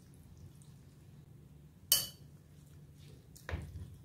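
A sharp clink of metal or plastic on a glass mixing bowl about two seconds in. Near the end, a spoon knocks and scrapes in the bowl as stirring of the wet grated potato begins.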